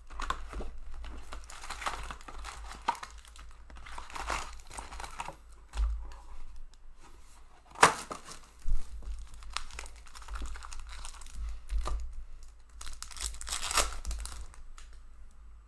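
Foil hockey card packs crinkling as they are handled, with a couple of sharp snaps near the middle, then a pack wrapper being torn open near the end.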